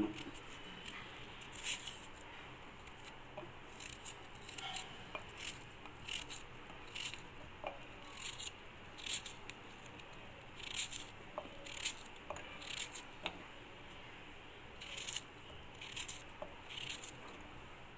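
Pieces of fresh coconut dropped one at a time into an empty stainless-steel mixer-grinder jar, giving light, irregular taps and clinks against the steel and the blades.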